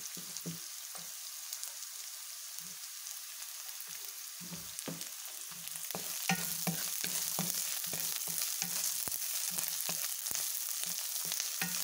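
Diced onion, garlic, chili and celery sizzling in a hot pan while a wooden spatula stirs and scrapes them against the non-stick surface in quick strokes. The sizzle and stirring get louder about halfway through.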